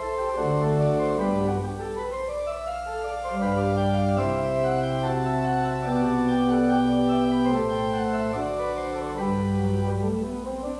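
Church organ playing a prelude: sustained chords over a bass line that moves slowly, a note every second or two.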